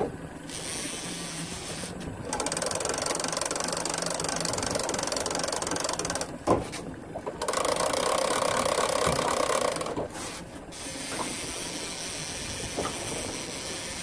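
Fishing reel cranked fast to bring in a hooked lake trout, a rapid mechanical whirring in two long spells of several seconds, with a knock between them. The boat's outboard motor runs low underneath.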